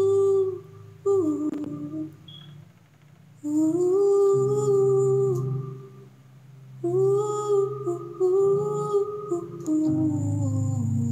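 A woman singing long, held, wordless notes that slide between pitches, in several phrases with short pauses between them, over a low sustained musical backing.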